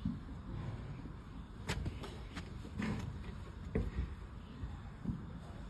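Hoof-trimming knife cutting through a donkey's overgrown hoof horn: scraping with several sharp cracks, over a low steady rumble.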